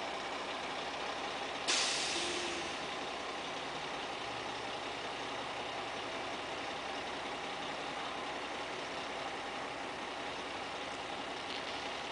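Mack Granite dump truck's diesel engine running steadily, with a sudden loud hiss of released compressed air about two seconds in that fades over about a second.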